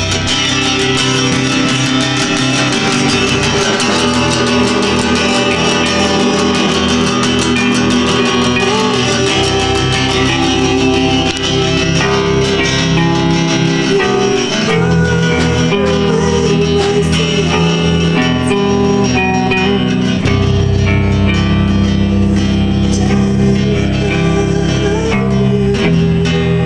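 Amateur rock band jamming: two guitars, bass guitar and drum kit playing together, with steady drum hits throughout. The low bass gets heavier about twenty seconds in.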